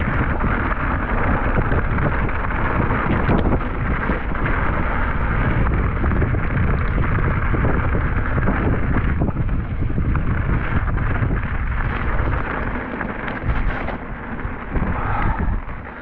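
Wind buffeting the microphone: a loud, steady rush with a heavy low rumble, easing a little about thirteen seconds in.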